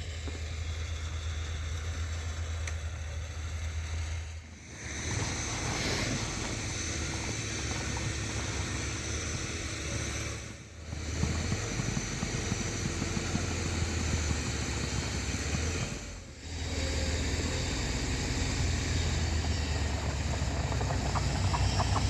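Off-road vehicle engine running steadily, with three brief drops in sound that break it.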